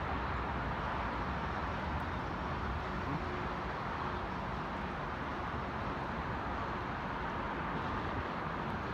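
Steady, even noise of road traffic on the highway viaducts mixed with a Metro-North commuter train running along the tracks below.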